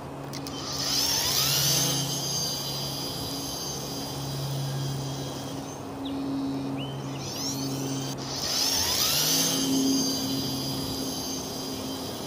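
Gas string trimmer (weed eater) running steadily while trimming grass along a sidewalk edge. A higher buzzing whir swells twice, for about two seconds each.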